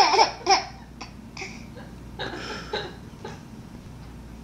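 Baby laughing: a loud run of laughs at the start, then a few short, softer laughs.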